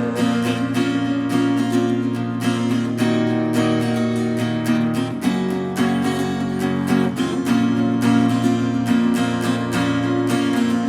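Acoustic guitar strummed steadily in an instrumental passage, with no singing; the chord changes a little past halfway and returns about two seconds later.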